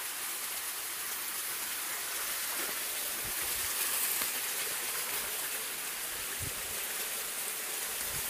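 Steady hiss of a small stream flowing, with a few soft low thumps.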